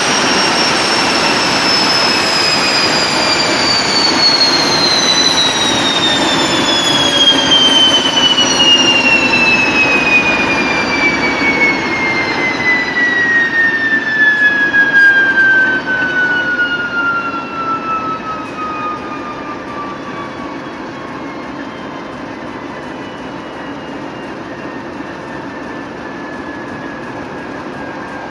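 Turbocharger whistle of a TEP70 diesel locomotive, a high tone with overtones falling steadily in pitch over some twenty seconds as the turbine spools down. The engine and running train underneath drop in loudness about halfway through and then run on steadily.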